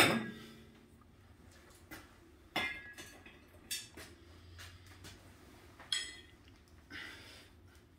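Scattered sharp metallic clinks and short scrapes about a second apart, the loudest right at the start with a brief ring: a propane torch being set down and a screwdriver picking at a cut-open .50 BMG incendiary bullet nose on a steel plate.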